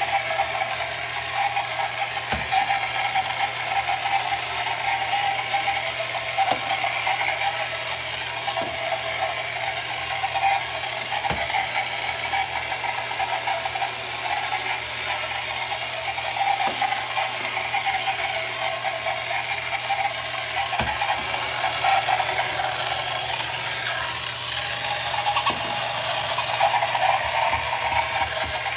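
A 1968 Ideal Motorific Boaterific Outboard Avenger toy boat motor running: a steady mechanical whirring buzz, with a few light knocks.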